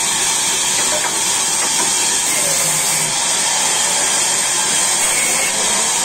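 Sawmill machinery running with a loud, steady hiss that does not change.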